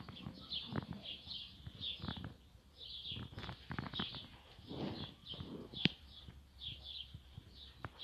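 A small bird chirping over and over, about two to three short high chirps a second, with soft rustling and light knocks mixed in and one sharp click about six seconds in.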